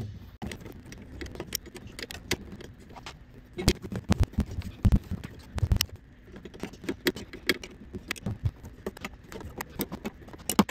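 Small metallic clicks and clinks of steel brake lines, their fittings and a wrench being handled while they are lined up and started into a brake booster. A few heavier knocks come about four to six seconds in.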